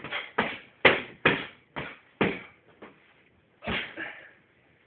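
Punches smacking into hand-held striking pads in a fast combination, about seven hits in three seconds, then a single heavier kick landing on the pads near the end.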